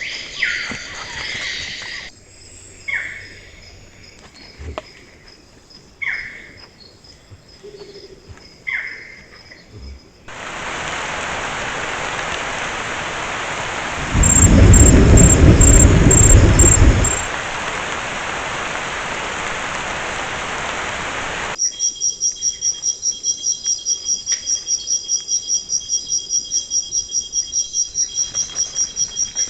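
A short animal call repeats about every three seconds in a quiet forest. About ten seconds in, heavy rain comes on as a steady hiss, with a loud rumble of thunder in the middle. Near the end, the rain gives way to an insect chirping in an even pulse of about four to five beats a second.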